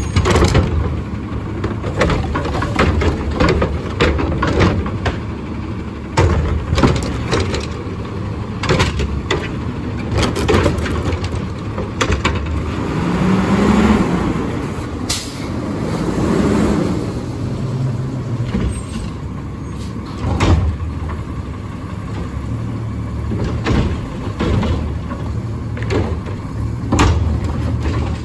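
Front-loader garbage truck with a carry-can cart-tipping arm, its diesel engine running while the hydraulic arm grabs and tips a trash cart, with repeated sharp metal clanks and knocks. The engine revs up twice near the middle as the hydraulics work.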